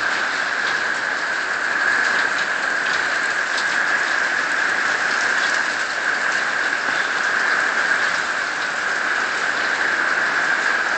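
Heavy tropical-storm rain pouring steadily, wind-driven and coming down sideways, with scattered drops ticking close by.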